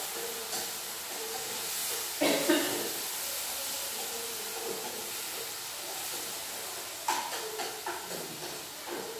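Steady hiss of a pan cooking over a lit gas burner while it is stirred with chopsticks, with a few knocks and clinks of utensils against the pan about two seconds in and again about seven seconds in.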